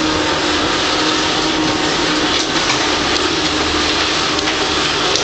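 Vacuum cleaner running steadily: a constant rushing noise with a steady low hum beneath it.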